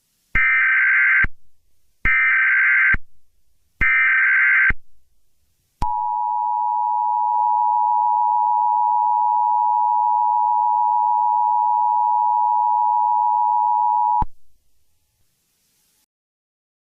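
Emergency Alert System SAME header: three identical bursts of warbling data tones, each just under a second long, followed by the two-tone attention signal, a steady dual tone held for about eight seconds before it cuts off. It marks the start of an emergency alert broadcast.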